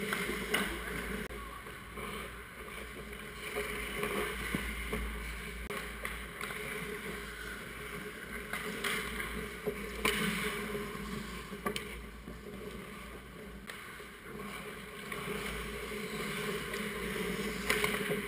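Ice hockey play close to the net: skate blades scraping and swishing on the ice as a steady hiss, with several sharp clacks of sticks and puck scattered through it.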